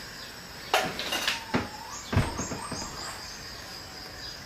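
A handful of short, sharp knocks and clatters in the first half, over a faint steady high-pitched tone.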